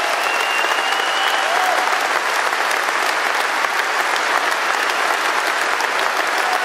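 Large crowd applauding steadily, an even wash of clapping.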